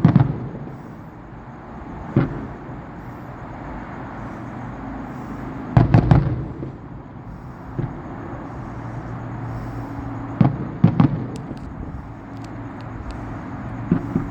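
Distant fireworks shells bursting in a series of booms: one right at the start, one about two seconds in, a quick cluster about six seconds in, a close pair around eleven seconds and another near the end, with a few faint crackles between.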